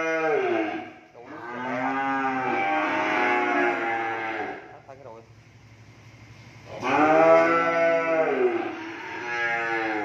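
Young cattle mooing in a pen: several long, drawn-out calls, one after another, with a quieter gap of a couple of seconds midway.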